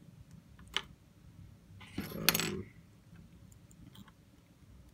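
Small metal parts and tools handled on a desk while an iPhone 6s is being taken apart: a single light click, then about two seconds in a short metallic clatter, as of a small piece being set down.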